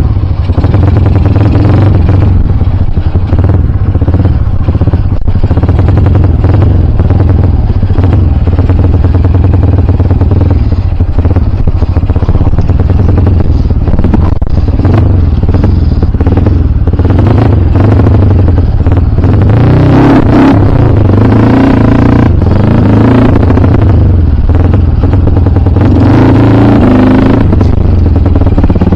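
Kawasaki KLX dirt bike's single-cylinder four-stroke engine running loud and close while being ridden on a trail, revving up and easing off in pulls, with scattered knocks and rattles.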